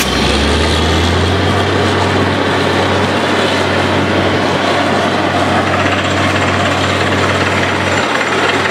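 Truck-mounted borewell drilling rig running steadily, with a constant low engine hum under a dense mechanical noise. The engine note steps up about a second in.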